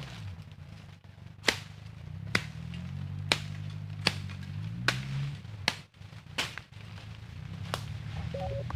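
Sharp clicks or knocks, eight in all, repeated roughly once a second over a low, steady hum.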